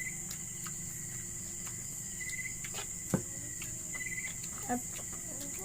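Crickets chirping steadily, with short trilled chirps now and then over a continuous high insect chorus. A single sharp click comes about three seconds in.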